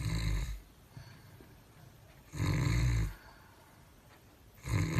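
A man snoring: three snores, each under a second long, about two and a half seconds apart.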